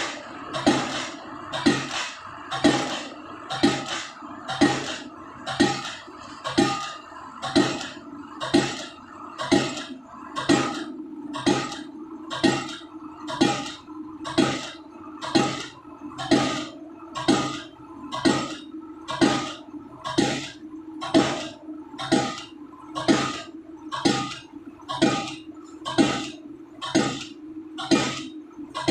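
Hydraulic pile-driving hammer, about 7 tons, striking a PHC concrete pile in a steady rhythm of about one blow a second, over a steady low hum.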